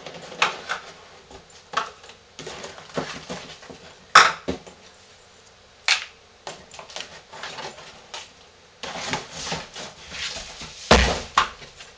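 Empty lotion jars being taken out of a cardboard box and set down on a tabletop one after another: irregular light clacks and knocks, with a heavier thump near the end.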